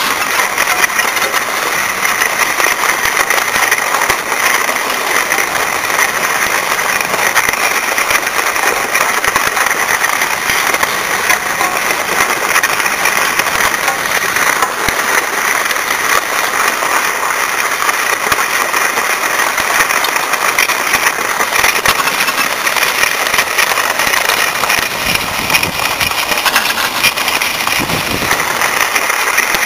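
Skis sliding over the groomed snow of a T-bar lift track while being towed uphill: a steady, loud hiss. A few low knocks come near the end.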